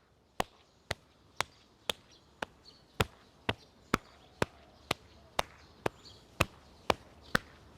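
Open hand slapping along the arm at a steady rhythm, about two sharp slaps a second: self-patting of the lung meridian to shake loose and unblock the muscle along it.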